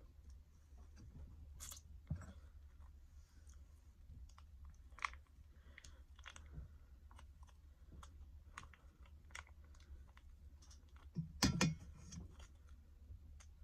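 Faint scattered clicks, crinkles and eating noises from squeezing cheese spread out of a plastic ration pouch and eating it, with a louder burst of handling noise about eleven seconds in.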